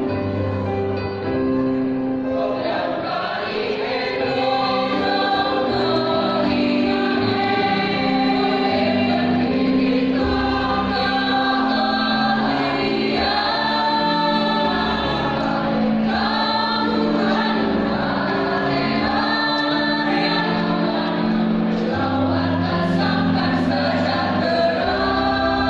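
Choir singing in parts, several voices holding and changing chords together.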